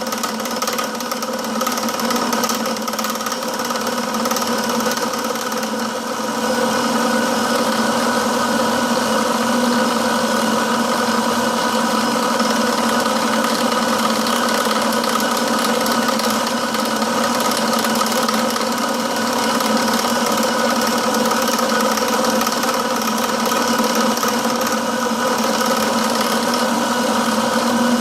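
Metalworking machine tool running steadily through a slow cut on a steel part fixtured to a rotary table, with a steady hum and several constant tones over a hiss; it gets a little louder about six seconds in.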